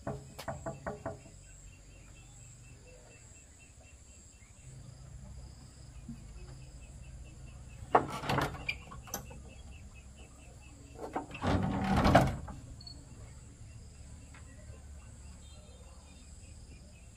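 Insects chirping in a steady, even pulse. A few sharp knocks come at the start and again about eight seconds in, and a louder scuffing bump about twelve seconds in is the loudest sound.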